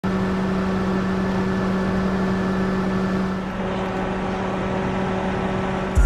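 A motor vehicle running steadily: a constant, unchanging hum over an even rush of noise, easing off slightly about halfway through.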